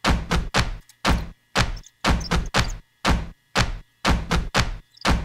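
A steady run of sharp knocks, about two a second, some coming in quick pairs, over a faint steady hum.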